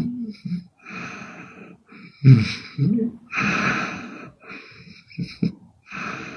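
A woman snoring hard in her sleep: uneven breaths, each a separate noisy rasp, the loudest about two seconds in, followed by a long breathy exhale.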